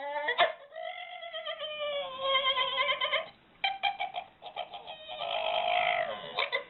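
An animal calling: several long, quavering, pitched cries in a row, with short breaks between them.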